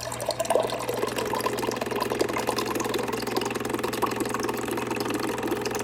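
Whirlpool WRF757SDHZ02 refrigerator's water dispenser running while it dispenses water: a steady buzzing hum with a fast rattle over it. The owner finds this a lot of noise and counts it as a fault of the dispenser.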